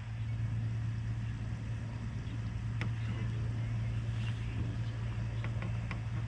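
A small electric motor on a fishing boat running with a steady low hum, with a few light clicks over it.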